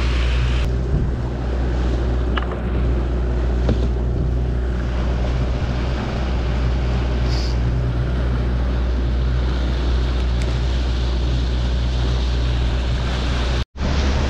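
Outboard motor running at steady trolling speed, with wind buffeting the microphone and water rushing past the hull. The sound cuts out for a split second near the end.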